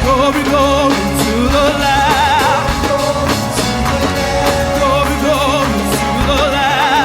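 Live contemporary gospel praise music: a lead voice singing sustained notes with wide vibrato over a band with steady bass and drums.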